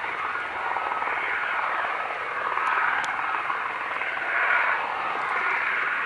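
Airbus A330-300's twin turbofan engines running at high power as the airliner speeds down the runway: a steady rushing jet roar with a thin fan whine, swelling and easing. A few faint, short high ticks sit near the start and around three seconds in.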